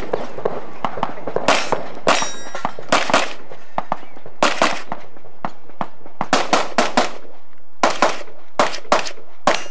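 Rapid handgun fire from a competitor shooting a practical pistol stage: about fifteen sharp shots, many in quick pairs a fraction of a second apart, with short pauses between strings as the shooter moves to new targets.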